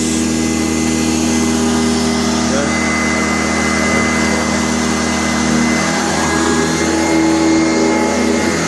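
Sanitaire SC684 commercial upright vacuum cleaner running steadily, a constant motor hum with a slight shift in its pitch about six seconds in.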